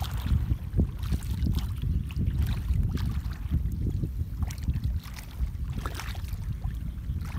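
Bare feet wading and churning through a shallow muddy puddle, water sloshing and splashing in uneven strokes, over a steady low rumble of wind on the microphone.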